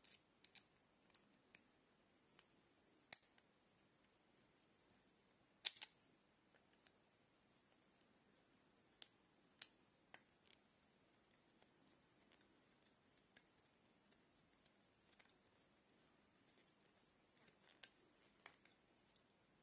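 Near silence broken by sparse, irregular small clicks and ticks of a screwdriver tip on a small terminal screw and wire, the sharpest pair about six seconds in and a short cluster near the end.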